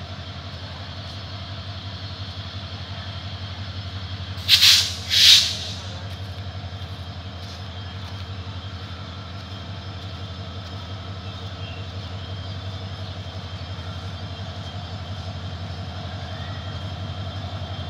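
Diesel locomotive engine running with a steady low drone as the train creeps slowly into the station. About four and a half and five seconds in, two short, loud hisses cut across it.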